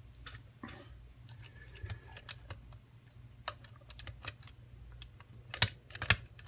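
Irregular small metallic clicks and taps of lock picks being handled and worked in a pin-tumbler lock, with two louder clicks near the end.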